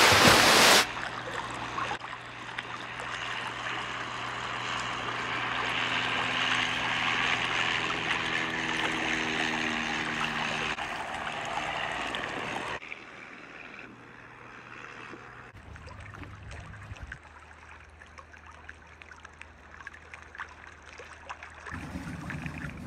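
Water and wind rushing past a moving boat, with a steady engine drone under it. A brief loud burst comes at the very start, and about halfway through the sound drops much quieter.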